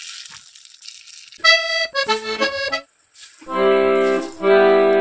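Background music: a quick run of notes, then sustained reedy chords that break off and start again. A faint hiss comes before the music starts.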